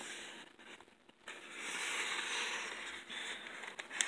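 A paper page of a picture book being turned: a soft rustle and slide of paper, strongest from about a second in to three seconds in, with a few light handling ticks near the end.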